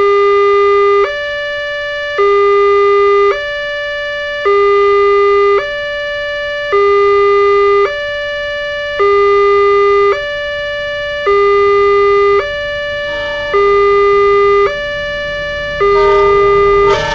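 Railway level-crossing warning alarm sounding while the barrier is down, the signal that a train is approaching. It alternates evenly between a lower and a higher tone, each held about a second. At the very end the noise of the approaching train begins to rise.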